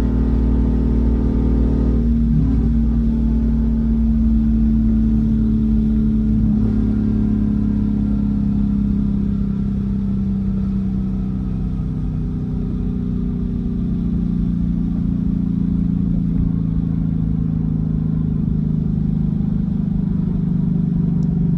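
Ford Mustang's Coyote 5.0 V8 heard from inside the cabin while driving: the engine pulls harder for about two seconds, then eases off, and its drone sinks slowly lower in pitch over the rest of the stretch, with road rumble underneath.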